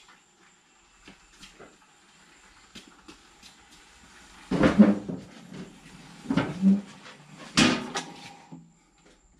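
A Triumph Speed Triple 1200RS motorcycle pushed by hand with its engine off across a concrete garage floor: light scuffs and ticks, then three loud clunks in the second half as it is wheeled forward.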